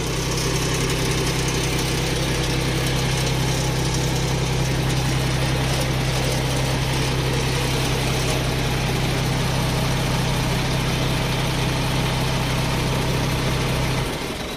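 Dump truck's diesel engine running steadily with the power take-off engaged, driving the hydraulic pump that lifts the loaded dump box. The steady drone cuts off near the end.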